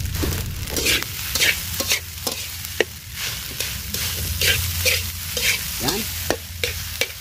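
Metal spatula scraping and clinking against a metal wok as fried rice is stir-fried, in repeated strokes about one or two a second, a few of them ringing briefly.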